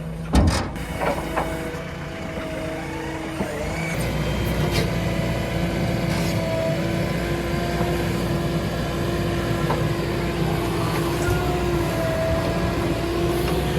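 Diesel engine of a JCB 3DX backhoe loader working under load, with a wavering hydraulic whine over it. A loud clanking thump comes about half a second in, followed by a couple of smaller knocks. About four seconds in the engine picks up and runs heavier.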